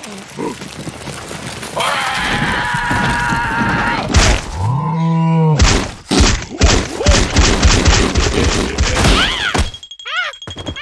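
Cartoon sound effects of a large spiky ball rolling in and crashing: a rumble that builds, a cartoon character's rising-and-falling cry, then a quick run of thuds and knocks, and wavering cartoon wails near the end.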